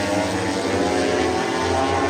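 Engine drone over a steady haze of noise, with many pitched lines gliding slowly down and back up.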